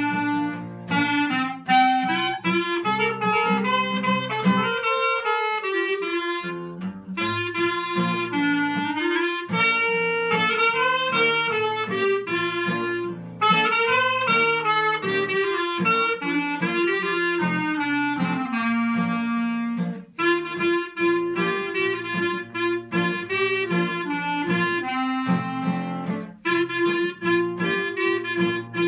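Two clarinets playing a melody together over guitar accompaniment, with a brief break about twenty seconds in.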